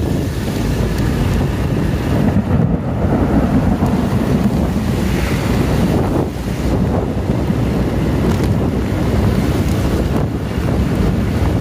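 Strong wind buffeting the microphone in a heavy downpour: a loud, steady, rumbling rush of wind and rain.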